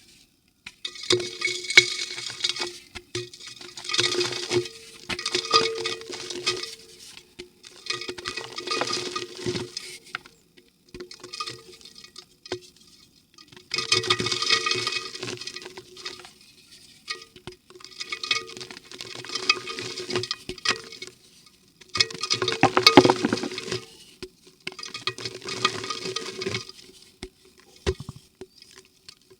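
Dry yellow mud crumbling and crackling as it meets water in a clay pot, in bursts of one to three seconds with short pauses between.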